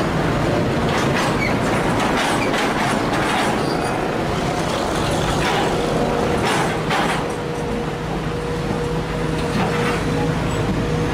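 Sumitomo SH210 hydraulic excavator working, its engine and hydraulics droning steadily under load, with repeated scraping and clanking as the steel bucket digs into soil and stones. A steady whine joins in about halfway through.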